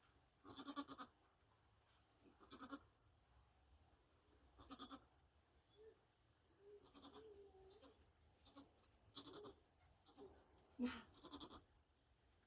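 Nigerian Dwarf goats bleating in a kidding pen just after a birth: a series of short, quavering bleats about every one to two seconds, with a softer, lower wavering call around six to seven seconds in.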